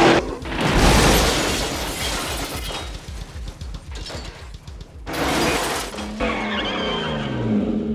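Car crash in a film chase, with glass shattering about a second in and a second burst of crashing noise around five seconds in, over a dramatic film score.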